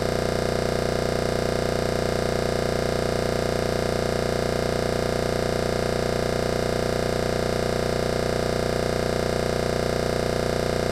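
Steady, unchanging electronic noise with a strong hum-like band in the low-middle range and a fine even pulse, with no change at all: a glitched or dead audio track rather than any sound from the court.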